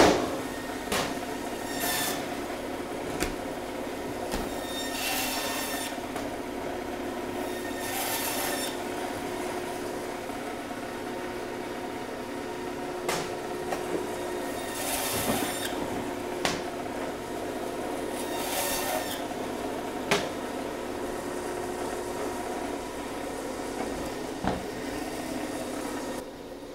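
Meat bandsaw running with a steady hum while its blade cuts bone-in bison hind shank into ossobuco steaks. Several short bursts of harsh rasping as the blade passes through the bone, with occasional sharp knocks as pieces are pushed and set down on the steel table.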